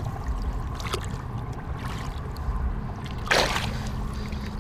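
Water sloshing in and around a fish landing net held at the side of a boat, with one short splash about three seconds in.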